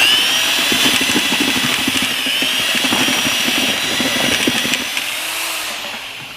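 Electric drill running steadily with a high whine, mixing mortar; it starts suddenly and winds down near the end.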